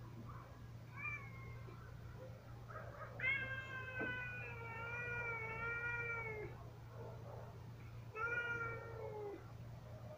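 Domestic cats meowing: a few faint short meows, then one long drawn-out meow of about three seconds, and another meow about a second long near the end.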